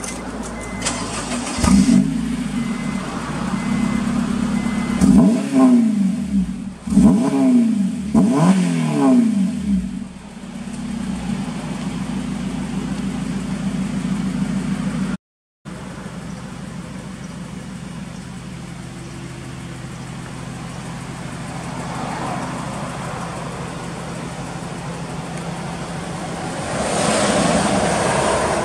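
Honda Civic Type R FN2's four-cylinder engine through a SEEKER aftermarket muffler, heard at the tailpipe: idling, then revved in a run of short blips that rise and fall in pitch, then settling back to a steady idle. The sound cuts out for a moment partway, and a louder rush of noise comes near the end.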